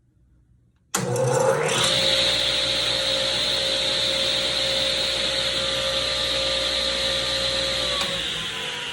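Grizzly G0771Z hybrid table saw switched on about a second in; its motor and blade spin up quickly and run at a steady hum and whine. Near the end it is switched off and starts to coast down, the pitch falling slowly.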